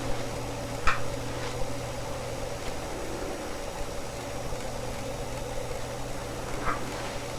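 Steady low hum over a background hiss, with a short faint sound about a second in and another near the end.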